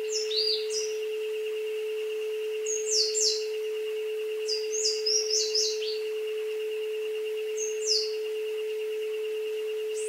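A steady pure tone, around 432 Hz, holds throughout under a jungle recording of birds: clusters of short, high, falling chirps about half a second in, around three seconds, around five seconds, and once more near eight seconds.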